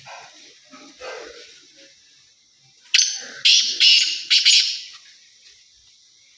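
Caged black francolin calling once: a loud run of about five quick notes, high in pitch, starting about three seconds in and lasting under two seconds.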